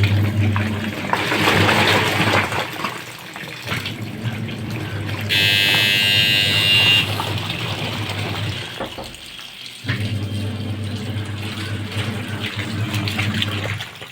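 LG 7.5 kg washing machine filling with water, a steady rush of water over a low hum. About five seconds in, a bright high electronic tone sounds for about a second and a half.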